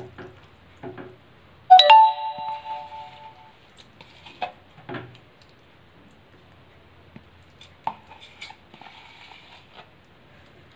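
A knock on a stainless-steel pot about two seconds in sets it ringing for over a second. A few soft knocks and scrapes follow as thick milk cream is spooned out of a container into the pot.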